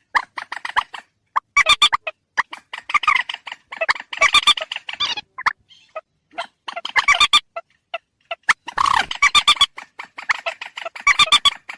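Calls of a mandar rail played as a hunting lure: quick runs of sharp, rapid notes, each under a second long, repeated again and again with short pauses between.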